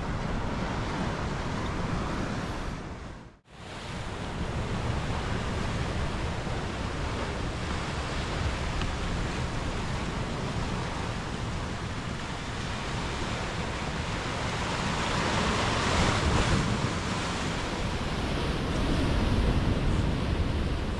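Sea surf washing against the rocks, mixed with wind noise on the microphone, as a steady rushing that swells louder twice in the second half. The sound cuts out for a moment about three seconds in.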